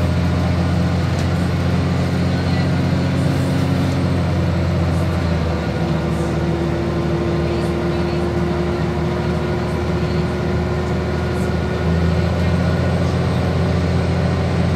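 Van Hool AG300 bus's diesel engine running at road speed, heard from inside the passenger cabin. About five and a half seconds in, the engine note drops back and a steady whine comes through. The engine pulls hard again about twelve seconds in.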